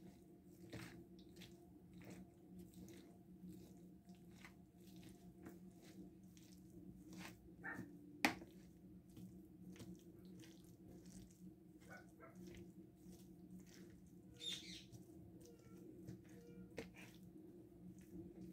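Faint squelching and ticking of boiled potatoes and shredded chicken being mashed and mixed by hand in a metal baking tray, over a steady low kitchen hum. A single sharp click about eight seconds in is the loudest sound.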